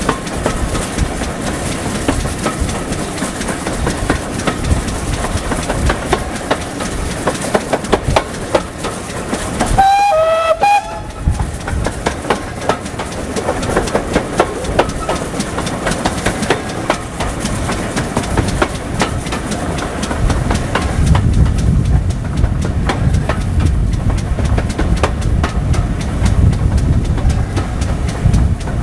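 Train hauled by GWR 4500-class 2-6-2 tank engine 4566 running at speed, heard from an open carriage window: steady running noise with wheels clicking over the rail joints. About ten seconds in comes a short blast on the locomotive's steam whistle. A heavier low rumble sets in for the second half.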